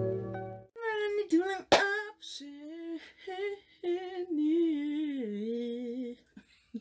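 Intro music on a mallet instrument cuts off in the first second. A woman then sings alone, unaccompanied, with wide vibrato on the held notes and long slides between pitches, stopping about six seconds in.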